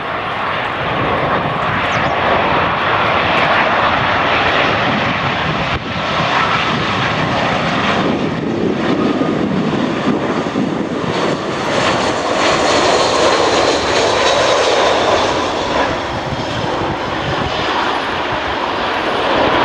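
Airbus A319 airliner's jet engines during landing: steady, loud engine noise, with a thin whine coming through about halfway.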